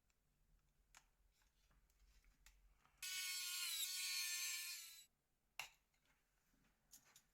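Nokia 6303ci mobile phone playing a short electronic tone of about two seconds that steps down in pitch and fades, amid light clicks from handling the phone's plastic shell and keys.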